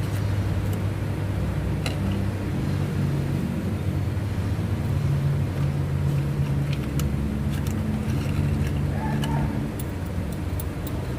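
A vehicle engine running steadily, a low drone whose pitch shifts slightly, with scattered light metallic clicks over it.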